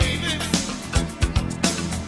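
Recorded pop music with a steady drum beat and a bass line.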